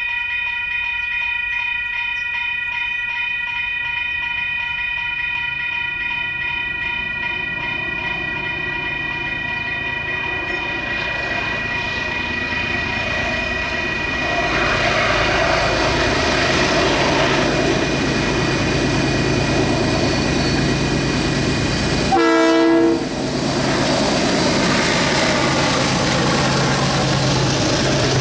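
Diesel-hauled train approaching: the locomotive's engine and wheel noise builds from about halfway through, and a short, loud horn blast sounds about three-quarters of the way in. Before that, a steady high ringing tone holds for the first half and fades as the train noise rises.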